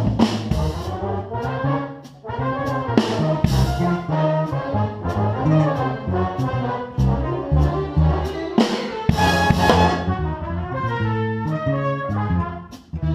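Big band playing a jazz chart: trumpets and trombones carry the melody over drum kit hits and cymbal crashes. The band drops out briefly about two seconds in and again near the end.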